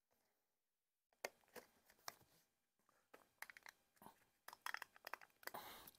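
Plastic quart bottle of engine oil being opened by hand: a run of sharp plastic clicks and crackles as the cap is twisted off, starting about a second in.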